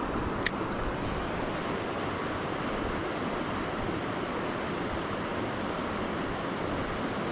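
Small stream running high after heavy rain, rushing steadily, with one sharp click about half a second in.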